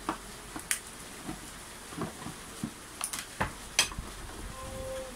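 Handling noises from a plastic motorcycle taillight housing, wrapped in paper and tape, being picked up and turned over on a wooden table: scattered clicks, knocks and light rustling, the sharpest clicks a few seconds in.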